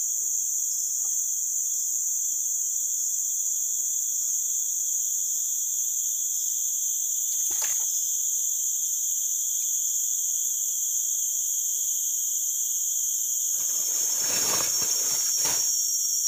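Steady high-pitched drone of a tropical forest insect chorus, with a brief scuff of handling noise about halfway and a longer stretch of rustling near the end.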